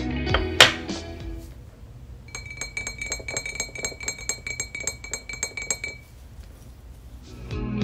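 A spoon stirring inside a glass carafe, clinking quickly and evenly against the glass, about six or seven clinks a second, with a steady ringing tone, for a few seconds in the middle. Just after the start there is a single sharp glass clink.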